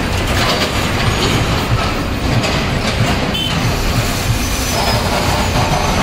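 Heavy diesel vehicles running close by, with buses, dump trucks and excavators all working at once: a loud, steady, rattling rumble. A thin high whine comes in near the end.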